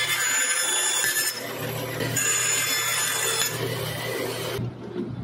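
Band saw running and cutting through 1/4-inch Baltic birch plywood, a steady motor hum under the hiss and whine of the blade in the wood. The cutting noise swells twice and stops near the end while the saw keeps running.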